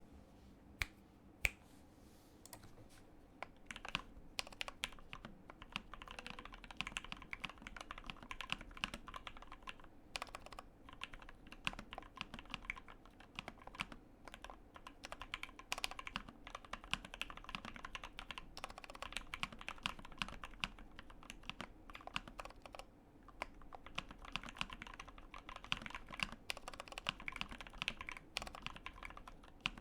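Fast typing on a Tofu84 mechanical keyboard with lubed Gateron Ink Black linear switches and JWK stabilisers: a quick, dense run of key clicks. Spacebar presses stand out, which the builder finds louder than he'd like. Two sharp, louder clicks sound about a second in, before the steady typing starts after a short pause.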